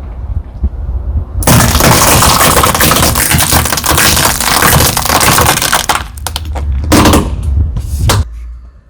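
Car tyre rolling over and crushing brittle objects: a low rumble under several seconds of dense crackling and breaking, followed by a few separate cracks before it stops.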